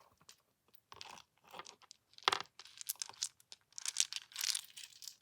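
Plastic bag of small charms being handled: the bag crinkles and the charms click lightly against each other in irregular bursts, busiest near the end.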